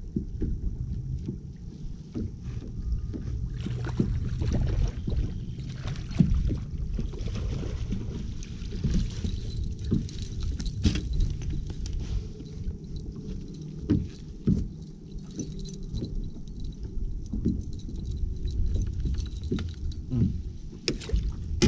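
Water lapping at a bass boat's hull with wind on the microphone, broken by scattered knocks and a metallic jingling of the Alabama rig's wire arms and blades as a bass is swung aboard and handled.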